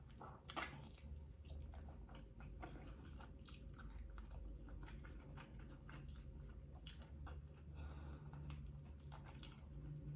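A person chewing and biting a chicken wing, eating sounds picked up close to the mouth as many small irregular wet clicks and crunches.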